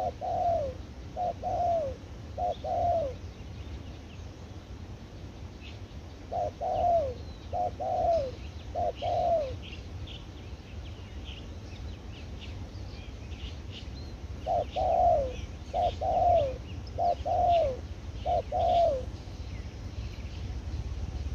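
Spotted dove cooing in repeated phrases of short falling coo notes: one phrase at the start, another about six seconds in and a longer one about fifteen seconds in. Small birds chirp faintly in between, over a steady low rumble that grows louder near the end.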